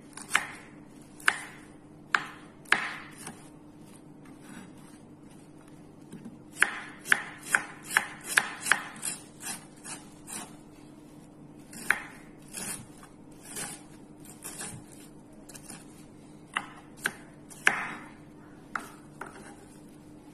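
Kitchen knife chopping red onion on a wooden cutting board: sharp, irregular knocks, with a quick run of strokes about a third of the way in.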